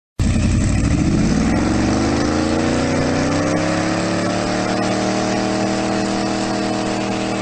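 Car engine running, its pitch climbing over the first few seconds as the revs rise, then holding steady at a raised speed.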